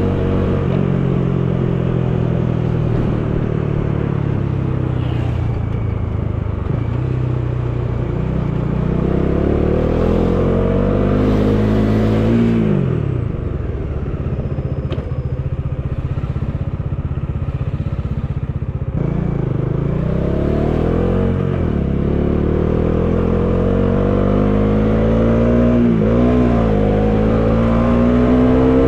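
Bajaj Dominar 400 single-cylinder motorcycle engine under way, heard from the rider's seat with wind noise: revs climb, drop sharply about halfway through as the throttle is closed, hold lower for several seconds, then rise again through the gears with short dips at the shifts.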